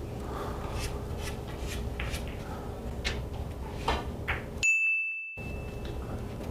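A single bright electronic ding, one clear high tone that starts sharply about two-thirds of the way in and fades over about a second and a half. Before it there are only soft scattered clicks over quiet room noise.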